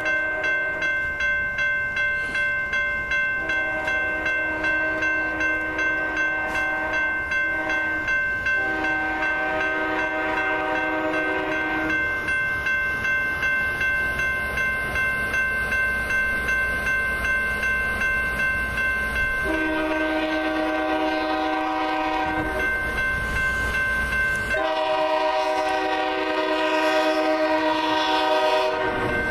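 Level-crossing warning bell ringing in a steady, rapid ding throughout, while an approaching CSX diesel freight locomotive's air horn sounds four long blasts for the crossing: the first about three seconds in, the last running into the end.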